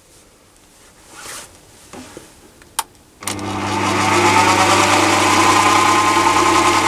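A sharp click, then about three seconds in a Chinese mini lathe starts up and runs at a steady speed, its motor and spindle giving a steady hum with a whine above it.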